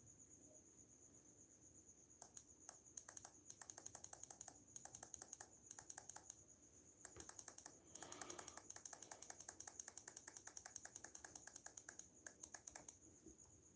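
Typing on a computer keyboard: quick runs of key clicks starting about two seconds in, with a short break near the middle, heard faintly.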